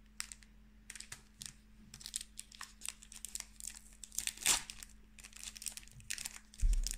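Foil wrapper of a Pokémon booster pack crinkling and crackling in irregular bursts as it is handled, with a dull bump near the end.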